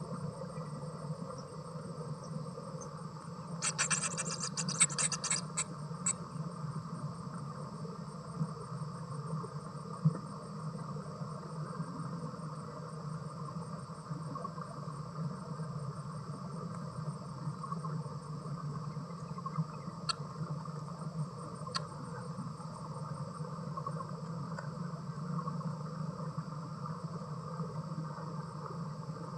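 Steady outdoor insect chorus, crickets with a thin high whine, with a short burst of rapid clicking about four seconds in and two faint ticks near the end.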